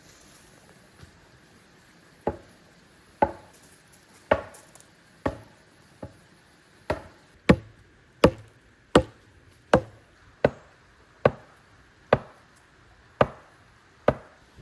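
Wood being chopped: about fifteen sharp blows at roughly one a second, beginning a couple of seconds in and coming a little faster in the middle.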